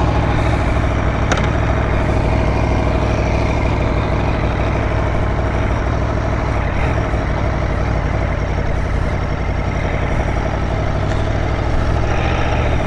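Aprilia Tuono V4 1100 Factory's V4 engine idling steadily.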